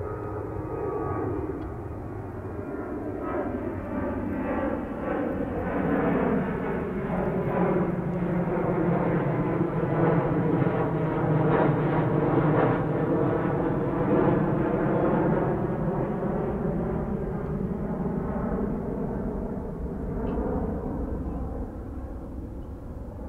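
Boeing 737 jetliner's twin jet engines at climb power as it passes overhead after takeoff. The noise builds to its loudest about halfway through, with a sweeping, phasing swirl as it goes over, then fades as the plane climbs away.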